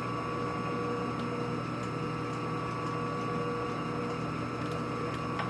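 Steady hum of running machine-shop machinery, a constant drone holding several even tones, with a few faint ticks.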